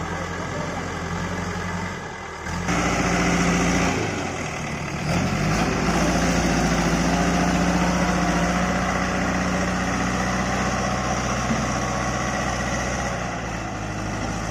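JCB backhoe loader's diesel engine running, its note stepping up twice and rising in pitch about five seconds in as the revs climb, then holding steady at the higher speed.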